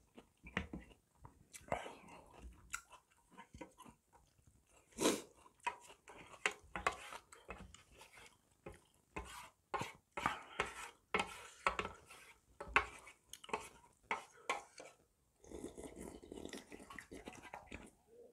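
Close-up eating sounds: chewing and lip smacks, with a wooden spoon scraping and tapping in an aluminium lunchbox tin as the last of the spicy broth and rice is scooped up and slurped.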